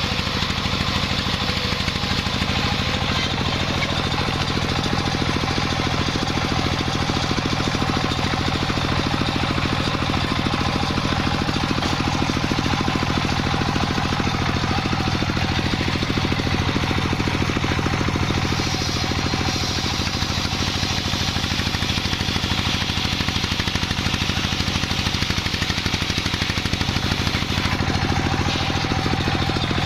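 The engine of a wood sawmill running steadily at a constant speed, with an even, fast pulsing throughout.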